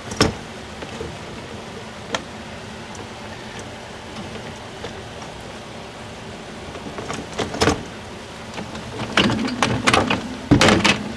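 Dishwasher rack and door being handled: a few single knocks, then a run of clatter and knocks near the end, over a steady low hum.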